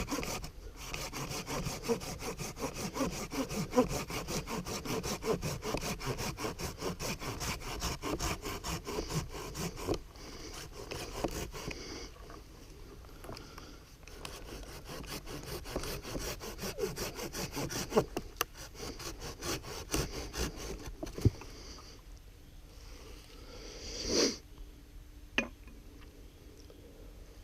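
Folding hand saw cutting through wood in fast, even back-and-forth strokes. It pauses about twelve seconds in, saws again for several seconds, then stops; a single louder sound comes near the end.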